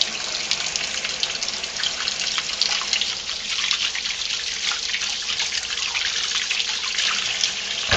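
Kitchen faucet running in a steady stream into a stainless steel sink, the water splashing over hands being rubbed together under it.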